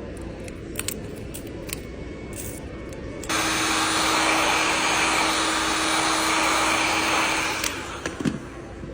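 An electric air-blowing tool switches on abruptly, runs with a steady loud rush of air and a faint steady hum for about four seconds, then cuts off, with a few light clicks before and after.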